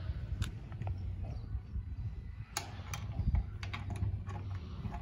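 Small metallic clicks and taps from a coin being fed into the coin mechanism of a coin-operated pet-food dispenser, scattered from about half a second in and coming thick and fast around three to four seconds in, under a steady low rumble.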